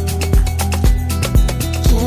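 Background pop music with a steady kick-drum beat, about two beats a second, under sustained synth tones.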